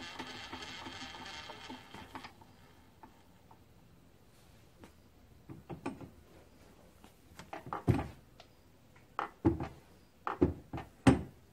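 A steady hiss that stops about two seconds in, then a series of sharp metal knocks and clunks as a hand works the milling-machine vise and the aluminum block in it. The knocks come in small clusters and grow louder toward the end.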